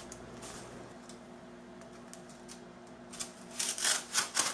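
Scissor blade scoring corrugated cardboard: a few short scraping strokes in the last second and a half, over a faint steady hum.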